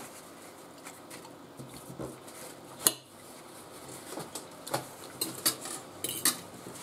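Knife and fork clinking and scraping on a ceramic dinner plate as food is cut, in scattered sharp clicks. The sharpest click comes about three seconds in, with a cluster more in the second half.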